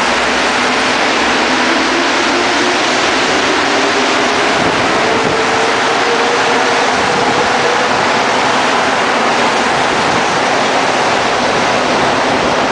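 Rubber-tyred Montreal Metro train pulling out past the platform: a loud, steady rushing of the cars going by, with a faint whine from the motors that rises in pitch a few seconds in as it picks up speed.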